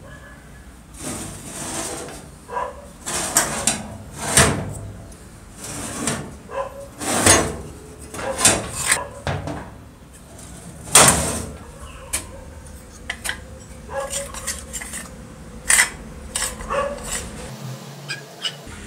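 An old rusty circular saw being handled and turned over on a hard floor: irregular metal clanks and knocks from its housing, blade and loose, rusty blade guard, with several louder knocks among them.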